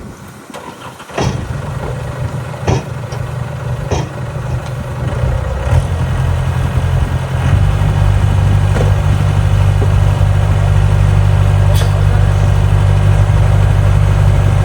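Heavy diesel engine of earth-moving machinery, coming in about a second in and running steadily, then revved up to a louder, even run about halfway through. A few sharp knocks and clanks sound over it.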